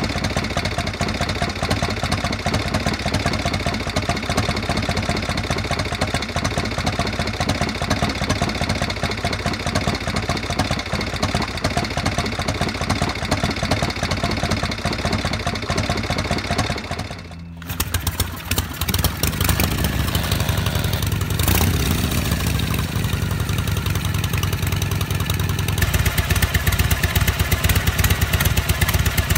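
Harley-Davidson Shovelhead air-cooled V-twin idling steadily with an uneven, loping beat. After a cut about 17 seconds in, another Shovelhead-engined bike idles, with a brief blip of the throttle a few seconds later that falls back to idle.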